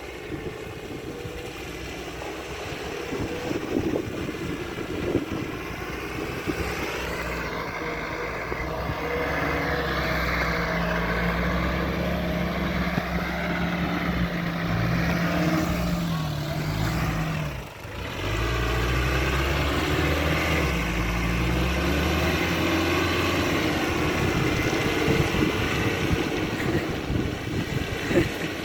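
Nissan Terrano WD21's engine working off-road, its pitch rising and falling with the throttle, with a brief drop just under two-thirds of the way through before it pulls again. Scattered knocks in the first few seconds.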